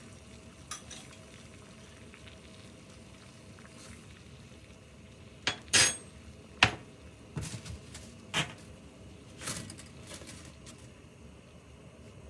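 Water bubbling at a rolling boil in a copper saucepan, with a run of sharp metal clinks and taps in the middle, a spoon against the pan as a tablespoon of salt goes into the water.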